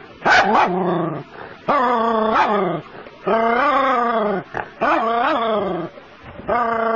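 A puppy barking at a snake in the water: five long, whining barks of about a second each, roughly one every second and a half. The first starts as a high yelp that falls in pitch.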